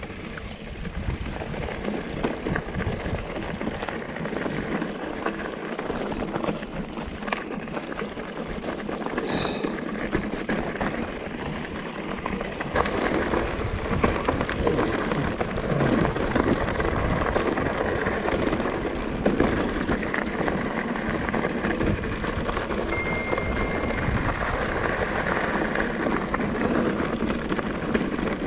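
Electric mountain bike tyres rolling over a rough, stony track, a steady crackling rattle with wind rumbling on the microphone; it gets louder about 13 seconds in.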